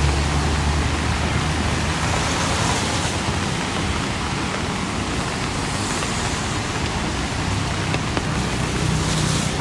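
Street traffic in the rain. A vehicle's engine hums close by at first and fades after about two seconds, another comes up near the end, and a steady hiss of rain and tyres on the wet road runs underneath.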